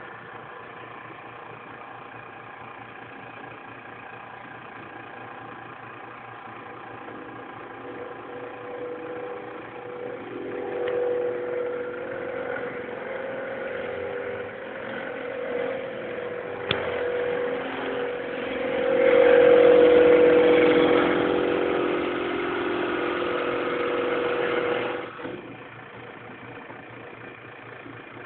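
Drill press motor running with a steady hum. About ten seconds in, the bit is fed down into a board and the sound grows louder and rougher, loudest around twenty seconds in. Near the end it drops back to the plain running hum as the bit comes out.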